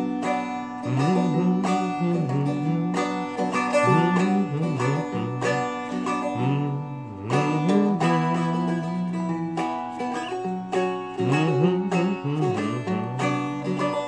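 Four-string Seagull Merlin strummed in a steady thumb-bass-and-strum pattern, starting on a B minor chord, through the second half of a song's chorus. A man hums the melody low along with it.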